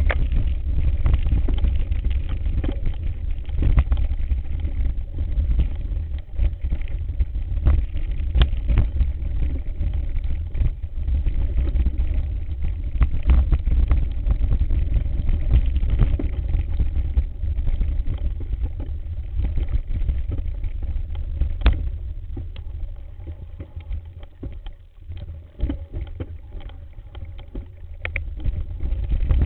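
Heavy wind and handling rumble on a mountain-bike ride camera's microphone, with frequent sharp clicks and knocks as the bike and camera rattle over rough singletrack. It eases off for a few seconds near the end, then picks up again.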